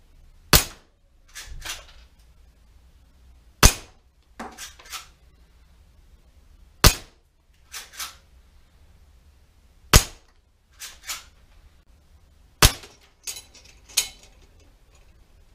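Five sharp shots from a Walther (Umarex) Winchester-style gas-powered air rifle, about three seconds apart, with pellets hitting a frame of hanging metal spoon targets. About a second after each shot come two lighter clicks.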